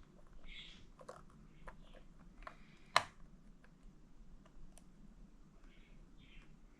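Faint scattered clicks and taps from handling a multimeter and its probes on an opened key remote's battery terminals, with one sharper click about three seconds in and a few soft rustles.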